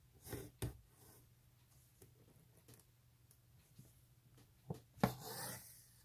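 Hand embroidery: a needle and floss worked through fabric, heard as a few soft ticks and rustles. The loudest is a tick about five seconds in, followed by a brief swish as the thread is drawn through.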